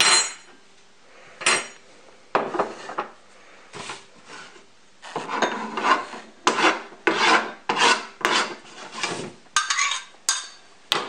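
Chef's knife blade scraping chopped garlic across a plastic cutting board, a quick run of scrapes about two a second in the second half, with ringing metal clinks at the start and near the end.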